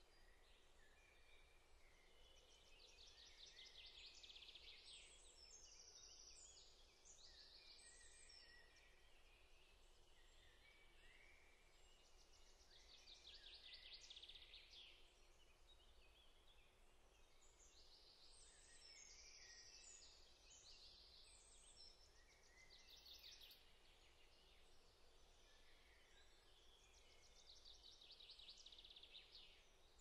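Faint woodland birdsong from several birds: repeated fast trills and short high chirping phrases over a low, steady background noise.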